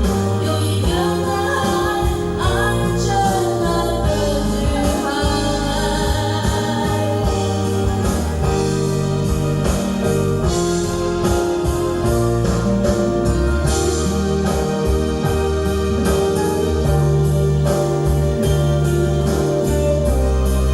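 Song playing through a karaoke room's sound system: a voice singing over a backing track with a steady beat, the voice dropping out after about six seconds while the accompaniment carries on.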